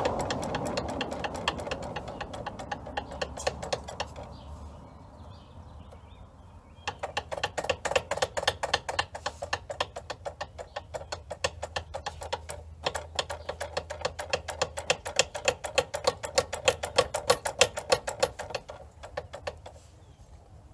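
Ratchet wrench clicking in quick, regular runs on an 8 mm fitting at a motorcycle's rear brake caliper, as the brake is being bled. The clicks are faint for the first several seconds, then louder and denser until near the end.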